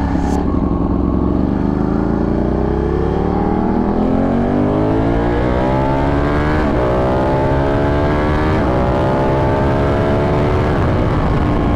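Ducati 1199 Panigale's L-twin engine accelerating hard. Its pitch climbs steadily for about six seconds, then drops briefly three times, about two seconds apart, as it shifts up through the gears, climbing again after each shift.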